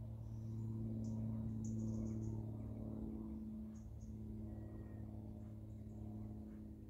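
A steady low mechanical hum, with short high bird chirps here and there.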